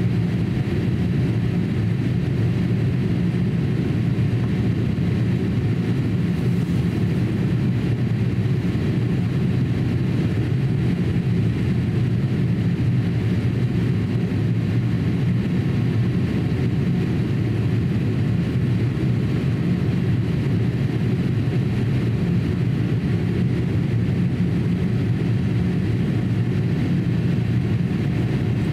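Steady cabin noise inside a Boeing 787-8 airliner in descent: an even rumble of engines and airflow.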